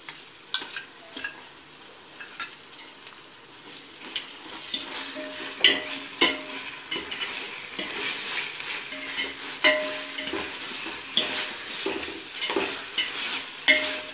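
Sliced onions and ginger-garlic paste frying in a stainless steel pot while a steel ladle stirs them, scraping and clinking against the pot. The sizzle grows louder about four seconds in.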